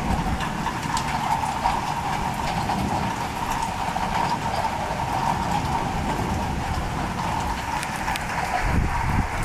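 Heavy downpour during a thunderstorm: steady rain with many sharp drop and splash ticks, and a low rumble swelling near the end.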